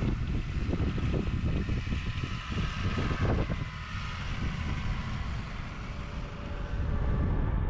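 Tracked New Holland tractor's diesel engine running as it drives past, its rubber tracks rolling while it pulls a snowmobile-trail groomer drag through the snow. It makes a steady low rumble.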